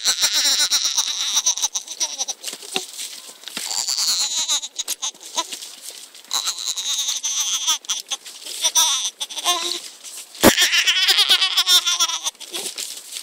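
A 23-week-old baby making long, drawn-out vocal sounds whose pitch wobbles rapidly as the pushchair jolts over bumpy ground, with frequent small clicks and knocks from the bouncing pushchair and one sharper knock about ten seconds in.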